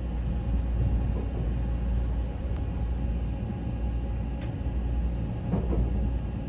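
Odakyu Romancecar express train running, heard from inside the car as a steady low rumble.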